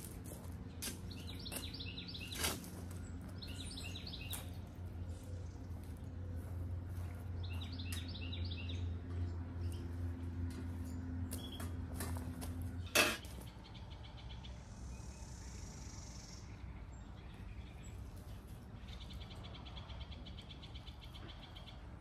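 Small birds chirping in short repeated trills, over a low steady hum that stops about halfway through. A few sharp knocks come as the metal bird feeder stand is handled, the loudest just as the hum cuts out.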